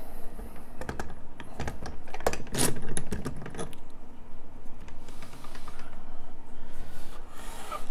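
Metallic clicks and clatter from handling a steel lever lock as it is lifted off the mounting posts of a vise mount, busiest in the first half.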